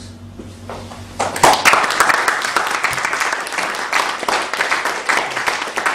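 Audience applauding, starting about a second in and carrying on steadily.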